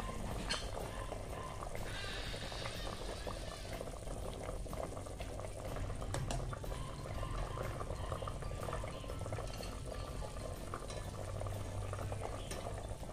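Pot of sinigang soup boiling at a steady bubble, with a few clinks of a ladle against the stainless steel pot as it is stirred and taro is scooped out.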